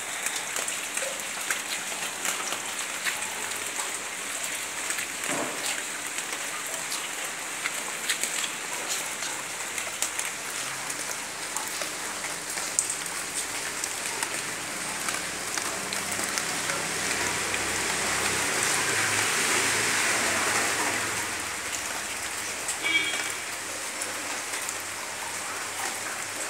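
Heavy rain falling, a steady hiss dotted with many single drops ticking. It swells louder for a few seconds past the middle, and there is a brief sharp sound near the end.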